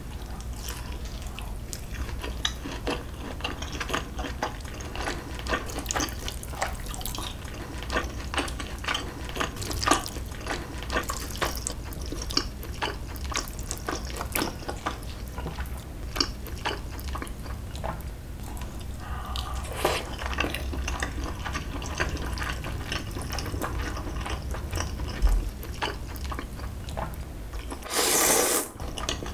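Close-miked eating of Chapagetti black-bean noodles: a run of wet chewing and smacking sounds, with a loud slurp of noodles about a second before the end.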